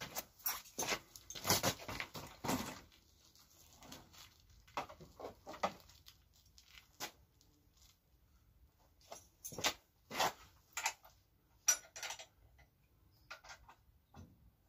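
Irregular clicks, clinks and scrapes of hand tools and small metal parts being handled while the moped's bent stand is taken off. They come in short clusters with pauses between.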